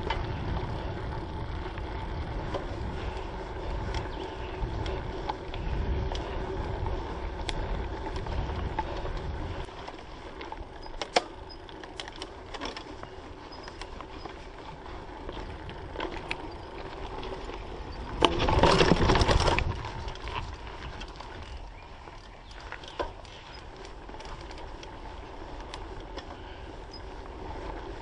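Mountain bike riding a dirt singletrack: tyres rolling over dirt, with the frame and chain rattling over bumps. A heavier rumble gives way after about ten seconds to a quieter roll with scattered sharp clicks and knocks, and a loud rushing burst about a second long comes roughly two-thirds of the way through.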